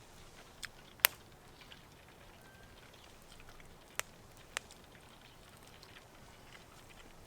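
Campfire crackling quietly, with a few sharp isolated pops, the loudest about a second in and two more about four seconds in.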